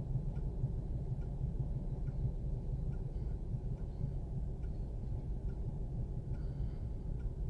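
Volvo V50 engine running with a steady low rumble after a long crank to start, misfiring by the owner's account. A faint regular ticking about twice a second runs over it.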